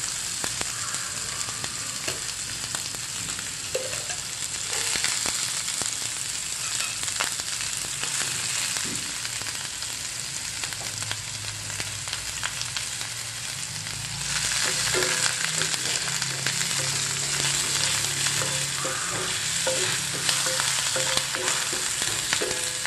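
Chopped onion and green chillies sizzling in hot oil in a frying pan as they sauté, stirred with a wooden spatula. The sizzle grows louder about two-thirds of the way through.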